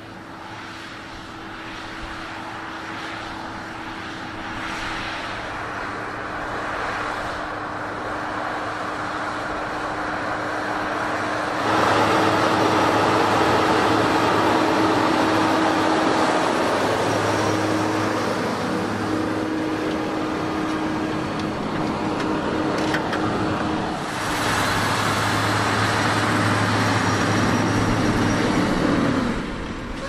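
Fendt 939 Vario tractor engine running steadily under load while pulling a plough through the soil, a continuous drone with a steady hum. It jumps louder about a third of the way through and shifts again later, as the shots change.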